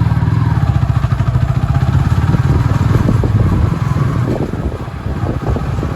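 Road traffic with a motorcycle engine running close by, loud for the first few seconds and then fading.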